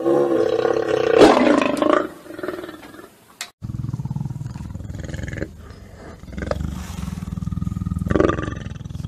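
A lion snarling with a harsh, ragged growl-roar, loudest about a second in. After a break, a steady low rumble runs close to the microphone, with another growl near the end.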